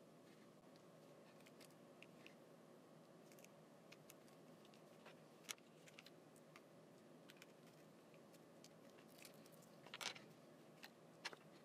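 Near silence: faint room tone with scattered small clicks and rustles from the ESC and its wires being handled on a desk, the loudest clicks about ten seconds in.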